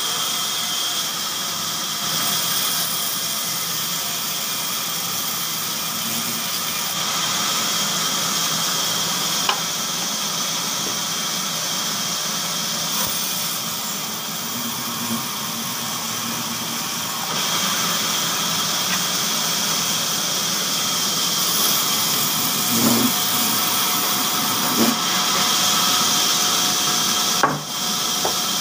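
Large vertical band saw running and cutting through thick wooden blocks: a steady hissing saw noise over a low machine hum, with a few short knocks of wood being handled.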